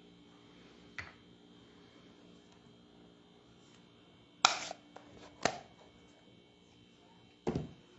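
Short clicks and taps of card-stock pieces being handled and set down on a craft table: one light click, two sharper ones a second apart, then a duller knock near the end, over a steady low electrical hum.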